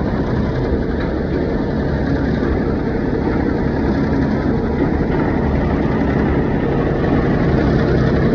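Engine of a borewell boring machine running steadily, a constant low drone that grows a little louder near the end.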